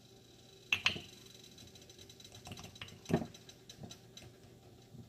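Plastic coffee scoop clicking and tapping while ground coffee is scooped into a cloth coffee strainer: a pair of sharp clicks just under a second in, a louder knock about three seconds in, and lighter ticks between.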